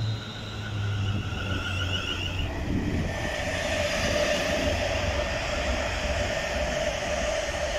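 Class 350 Desiro electric multiple unit accelerating away and passing close, its electric traction whining in steady tones over the low rumble of the wheels on the rails. The higher warbling tones give way to one steady tone about three seconds in.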